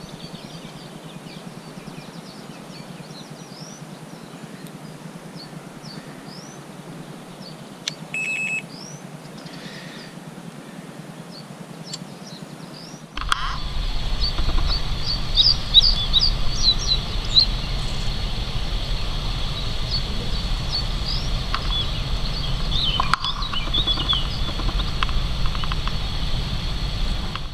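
Small birds chirping and twittering outdoors, with a short high steady beep about eight seconds in. About halfway through the sound gets louder: the birdsong is stronger and a low steady rumble runs underneath.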